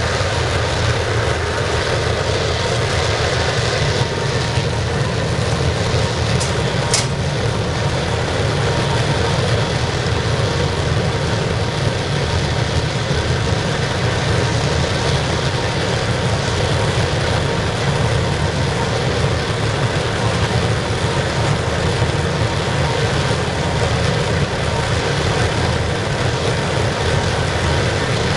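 Forced-air waste-oil burner of a scrapping furnace running steadily with its blower: an even, loud roar with a deep rumble beneath. The burner is firing smoothly at last, with the blower air inlet wide open and the oil valve about half a turn open.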